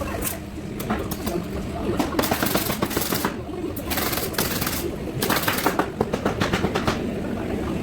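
Power tool driving fasteners into crate lumber. It fires in two rapid runs of sharp clicks, one about two seconds in and another from about five to seven seconds, over a steady background hum.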